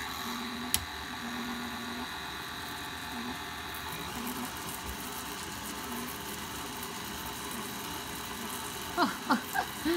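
KitchenAid Artisan stand mixer's motor running steadily at low speed, with a click about a second in. It drives the spiralizer attachment as it turns a zucchini and cuts it into spirals.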